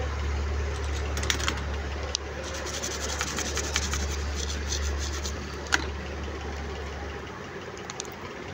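A steady low hum that cuts off about seven seconds in, under scattered sharp clicks and rubbing from hands handling an opened smartphone on a repair bench.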